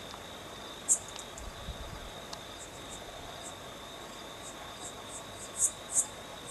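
Insects chirping in the dark: short, high chirps, one about a second in and a quick run of several more near the end, over a steady high-pitched hum.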